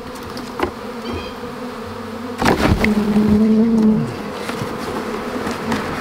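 Honeybee swarm buzzing close around the microphone while the remaining cluster is knocked off a branch into a cardboard box. A burst of rustling and knocks comes about two and a half seconds in, and the buzzing grows louder for about a second afterwards.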